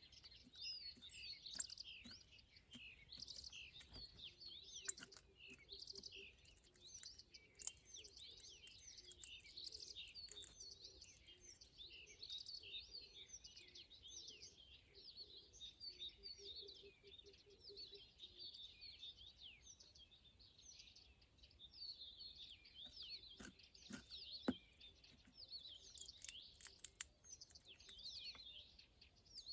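Many small birds chirping and twittering at once, a faint continuous chorus of overlapping high calls, with a few sharp clicks.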